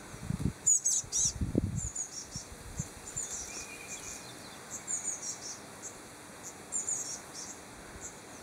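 Blue tit giving short, high, thin calls at intervals, a cluster about a second in and a few more spread through the rest. A few low thumps sound in the first two seconds.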